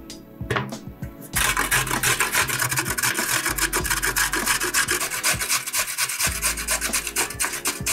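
A carrot being grated on the coarse side of a metal box grater, with quick, repeated rasping strokes. The grating starts about a second and a half in and stops just before the end.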